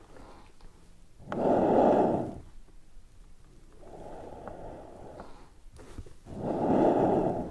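Air rushing through the bellows of a small button accordion as they are pushed and pulled, with no notes sounding. The whooshes come in turns: two louder ones of about a second, about a second in and near the end, between quieter, longer ones.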